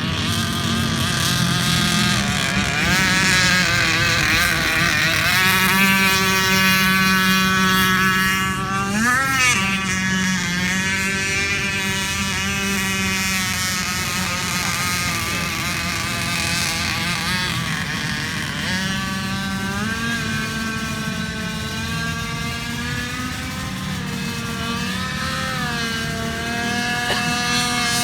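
Radio-controlled speed boat's motor running continuously, its pitch rising and falling with the throttle, with a quick rev up and back down about nine seconds in and a few smaller swells near the end.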